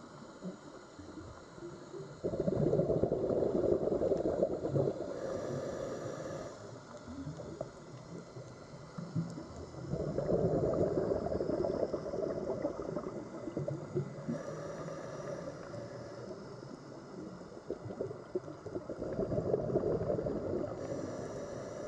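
Underwater sea ambience: a steady wash of water with three swelling surges of bubbling, gurgling water, about eight seconds apart.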